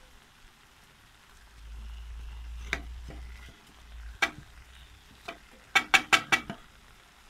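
A spoon stirring pieces of meat and chopped onion frying in a metal pot, over a faint sizzle. The spoon knocks against the pot a few single times, then five times in quick succession near the end.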